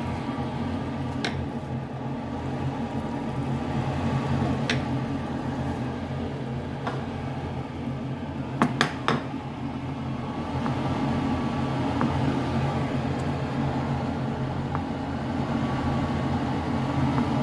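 Butter sizzling softly in a nonstick frying pan over a steady low hum, with a few sharp clicks of the spatula and garlic against the pan, the loudest pair about nine seconds in.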